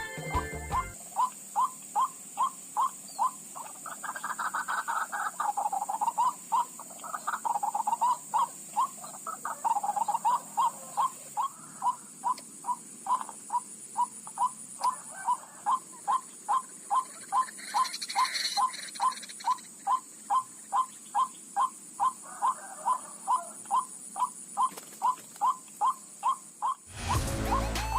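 White-breasted waterhen (ruak-ruak) giving its monotonous repeated call, one short note about twice a second, steady and unbroken. Softer, longer calls overlap it a few times.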